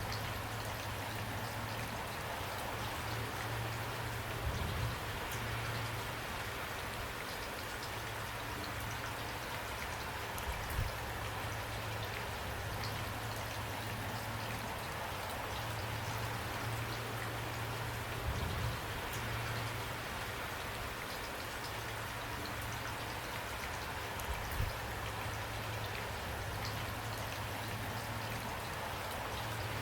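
Steady rain falling, an even hiss of drops with a low rumble underneath and a few brief louder thumps.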